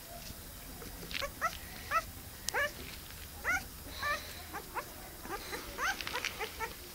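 Short, high-pitched animal calls, one every second or so, coming faster and closer together in the last couple of seconds.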